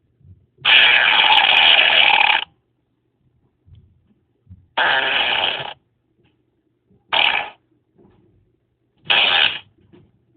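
A series of four fart sounds: one long raspy blast of nearly two seconds, then three shorter ones a couple of seconds apart.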